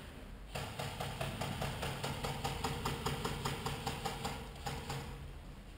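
Airsoft electric gun (AEG) firing a long full-auto burst: rapid, evenly spaced shots over the steady whine of its gearbox motor. It starts about half a second in and stops about five seconds in.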